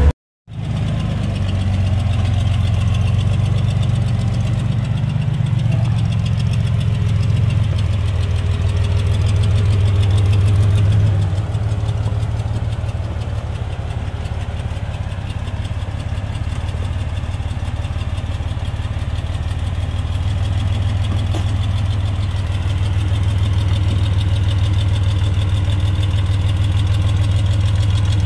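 Off-road rig's engine running steadily at low revs, rising a little about ten seconds in and then easing back. The sound drops out for a moment right at the start.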